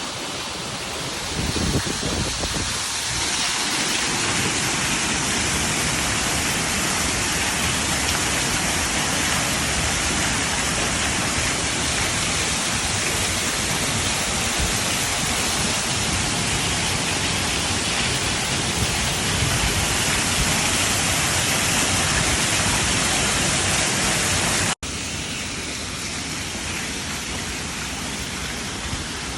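Waterfall water falling and rushing, a steady dense hiss. It cuts out for an instant near the end and carries on a little quieter.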